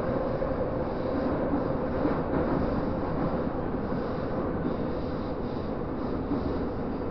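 Moscow metro train running, heard from inside the car: a steady rumble of wheels on rails with a constant hum.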